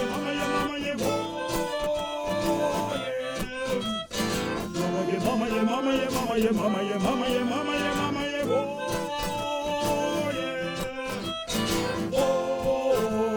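Live band music: an instrumental passage of a song between sung choruses, with one brief dip about four seconds in.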